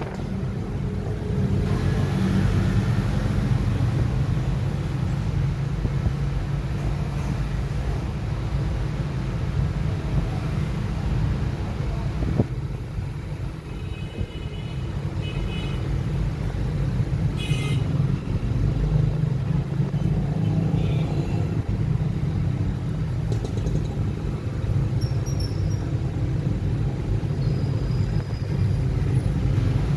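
Steady low background rumble, with a few brief faint higher tones about halfway through and a short sharp tick soon after.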